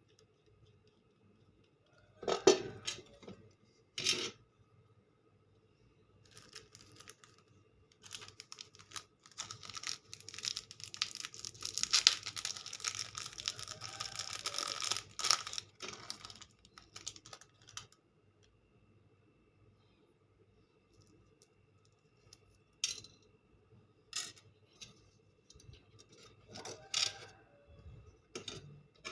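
Hand work on an opened sewing machine foot pedal: small hard parts clicking and knocking, with a long stretch of scratchy rattling in the middle.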